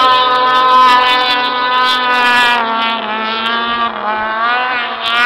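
Snowmobile engine running at high revs, holding a steady pitch for about three seconds and then wavering up and down as the throttle changes during the hill climb.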